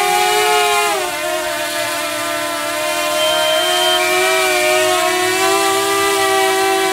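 DJI Mavic Air drone with Master Airscrew propellers, its motors at full power while held in the hand against its own takeoff thrust: a loud, windy propeller whine. The pitch drops about a second in, then slowly climbs back.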